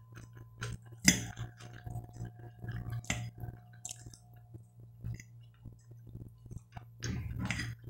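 Close-up eating sounds of roast chicken: chewing and wet mouth noises, with short clicks of a metal fork against a glass plate, the sharpest about a second in.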